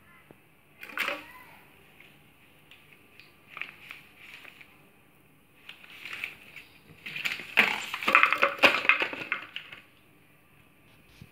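A dog chewing and crushing a plastic bottle among torn newspaper: crinkling, crackling plastic and paper in short bursts, then a long, loud stretch of dense crackling near the end.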